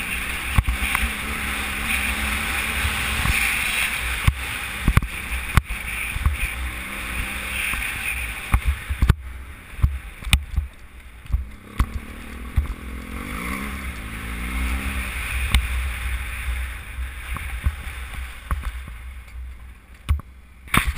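BMW F800GS parallel-twin engine running as the motorcycle rides a gravel dirt track, heard from a helmet-mounted camera with heavy wind buffeting and irregular sharp knocks from the rough ground. Everything gets quieter after about nine seconds, and the engine note rises and falls briefly around two-thirds of the way through.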